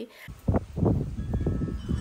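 Wind gusting against the microphone in uneven rumbles, with wind chimes starting to ring faintly in the second half.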